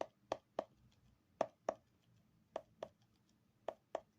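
Fingers tapping the rubber pads of a Donner Starrypad MIDI pad controller: about nine short taps, mostly in quick pairs.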